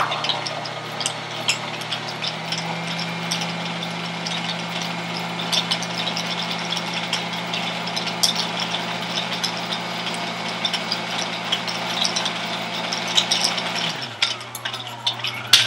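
Brother XL2600i sewing machine running steadily to wind a bobbin, its motor humming with a light rattle and clicks. About 14 seconds in it winds down and stops, and near the end the motor hums again briefly.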